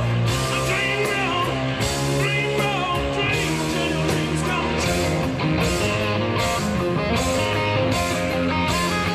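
Rock music: a band with electric guitar and a singing voice over a steady drum beat.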